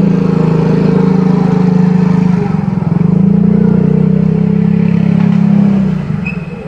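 Motorcycle engine running steadily at a constant speed, fading out near the end.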